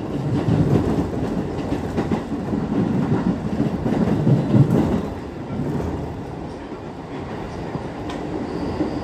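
Ride noise inside a JR 205 series electric commuter train running along the line: a steady rumble of wheels on rails with a few clacks over rail joints. It is loudest for the first five seconds or so, then eases off.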